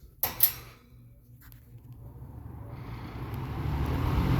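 Vintage Lasko model 4735 box fan switched on at high: two sharp clicks from the push-button switch, then the motor and blade spinning up, a low hum and rushing air growing steadily louder.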